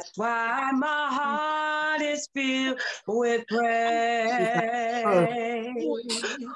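A woman singing an unaccompanied gospel worship melody without clear words, holding long notes with wavering vibrato and pausing briefly for breath.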